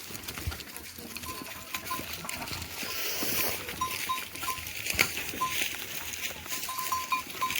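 Goats around the house, with short high pips repeated irregularly over a steady hiss and a sharp click about five seconds in.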